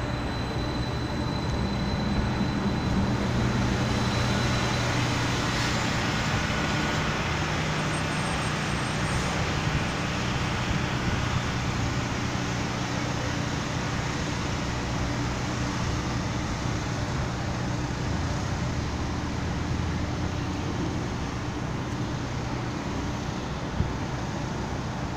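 Electric streetcar standing close by, a steady low hum from its equipment over a wash of street traffic noise. A thin high whine fades out in the first few seconds, and there is one small click near the end.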